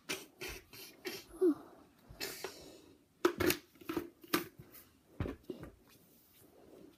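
Irregular short knocks, rustles and clicks close to the microphone, about a dozen in all, the loudest a cluster a little past three seconds in and another at about four and a half seconds.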